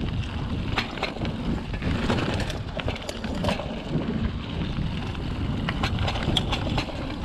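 Mountain bike ridden along a dirt singletrack: steady tyre noise on the trail, with frequent sharp clicks and rattles as the bike goes over bumps.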